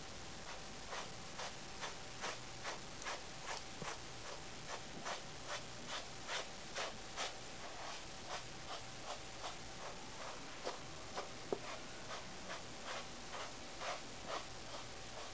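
Grooming brush rasping through a Siamese cat's fur in quick, regular strokes, about two to three a second. A single sharp click sounds about eleven and a half seconds in.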